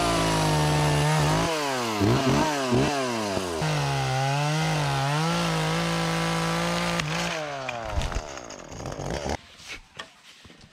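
Chainsaw engine running at high revs, its pitch dipping and rising several times, then winding down and stopping about nine seconds in.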